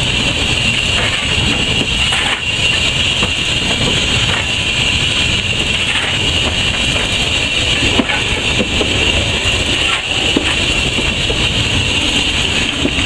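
Steam locomotive heard from inside its cab while under way: a loud, steady hiss of steam over the low rumble of the engine running, with a few light knocks.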